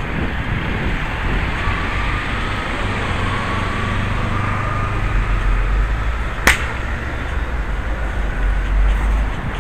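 Steady outdoor street noise with a deep low rumble, and one sharp click about six and a half seconds in.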